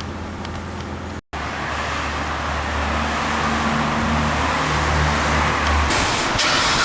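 V8 sports-sedan engine running, with a brief cut-out about a second in, then growing steadily louder.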